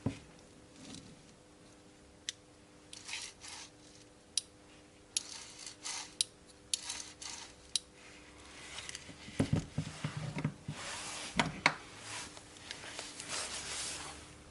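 Hands handling small metal parts and tools: scattered light clicks and taps, then rubbing and handling noise with a couple of duller knocks in the second half.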